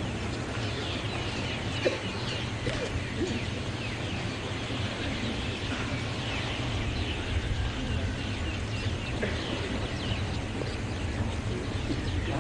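Many small birds chirping continuously, lots of short quick downward chirps, over a steady low rumble.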